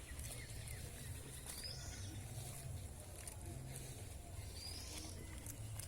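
Open-field ambience: a steady low rumble throughout, with two short high chirps, one about a second and a half in and one near five seconds.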